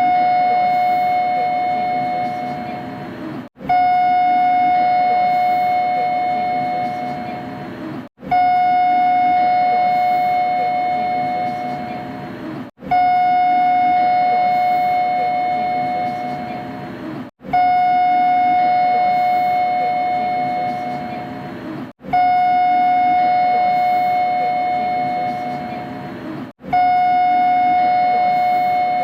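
Kita-Osaka Kyuko 9000 series train's three-tone electronic door chime, one recording looped over and over. Each chime rings for about three and a half seconds and fades, then restarts after a brief gap, about every four and a half seconds, over a steady background noise.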